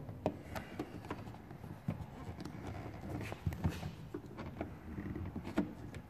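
Plastic trim removal tool prying at a car's fuel filler door housing, with scattered small clicks and taps of plastic on plastic as its retaining clips are worked loose.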